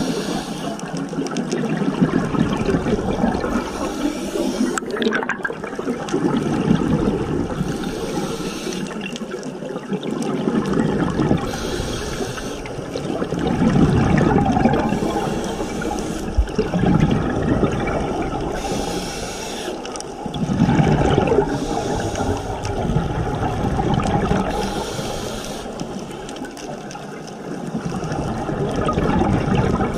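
Scuba diver breathing through a regulator underwater: a short hiss about every four seconds, each followed by a longer stretch of bubbling as the breath is let out.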